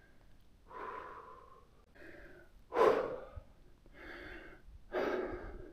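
A person breathing while hiking on snowshoes: about five breaths roughly a second apart, the one near the middle the loudest.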